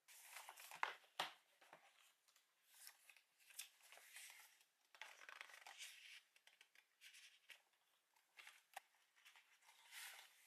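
Quiet rustling of paper colouring-book pages being turned and pressed flat on a table, with two light knocks about a second in. Near the end, a cardboard box of colour pencils is handled.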